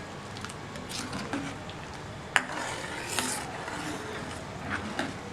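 A spoon stirring and scraping around a pan of thickening, reducing milk, with scattered clinks against the pan; one sharp clink about two and a half seconds in.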